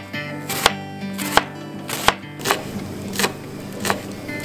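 A kitchen knife cutting through onion and striking a wooden cutting board, in sharp even strokes about one every 0.7 seconds. Soft acoustic guitar music runs underneath.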